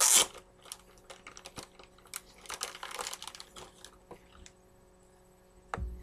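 Hands opening a package and handling a trading card in a clear plastic holder: a loud rustle at the start, then a run of small clicks and crinkly rustling of the packaging, and a low thump near the end.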